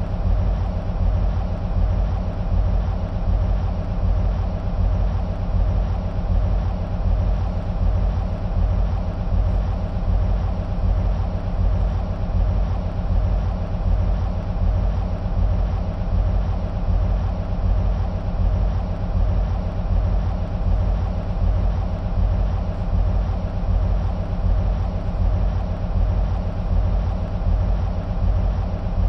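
EMD SW1500 switcher locomotive's two-stroke 12-cylinder EMD 645 diesel idling: a steady low rumble with a fast, even throb and a constant hum above it.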